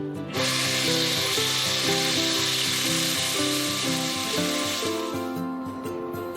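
Background music with a steady melody, plus a steady hiss that starts about half a second in and stops about five seconds in.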